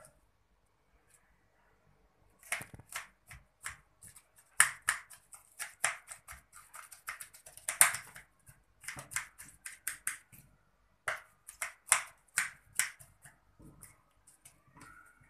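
Kitchen knife chopping lettuce and greens, quick sharp cuts in irregular runs of several a second. It starts a couple of seconds in and stops near the end.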